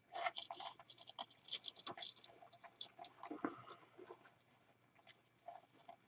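Faint, irregular rustling and crackling of flocked artificial evergreen branches and wired ribbon being pushed about by hands.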